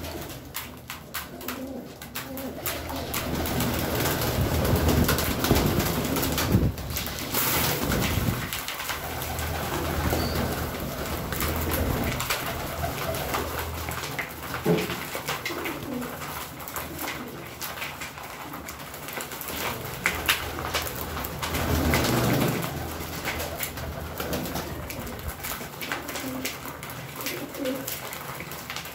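A flock of domestic pigeons cooing, with the low calls swelling and fading, over a steady patter of quick clicks from beaks pecking seed in a plastic tray.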